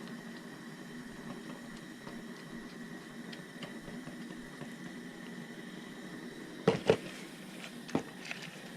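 A few sharp clicks and knocks, two close together about seven seconds in and one more a second later, over a low steady hiss: tools and parts being handled while an ignition coil pack is refitted on the engine.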